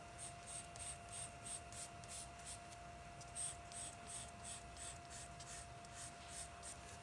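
Charcoal pencil scratching on paper in quick, short, repeated strokes, about three a second, with a brief pause midway, as hair strands are shaded in.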